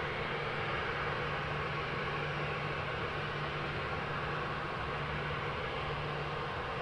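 Boeing 737-800's CFM56-7B turbofan engines running at taxi idle: a steady rushing hum with a low drone underneath, no rise or fall.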